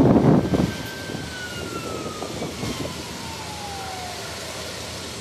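An emergency siren holds a steady high tone, then winds down in pitch for about three seconds. Wind rumbles on the microphone for the first half-second.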